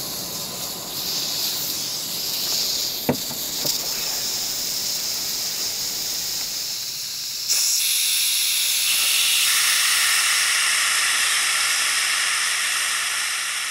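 Afghan kazan (pressure cauldron) letting off steam through its pressure-release valve: a steady hiss that turns louder and higher about halfway through. A single sharp clack comes about three seconds in.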